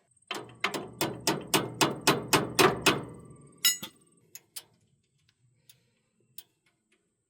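Hammer blows on metal: a quick run of about ten strikes at roughly four a second, then one more sharp strike about a second later, during work on a round baler's pickup tines.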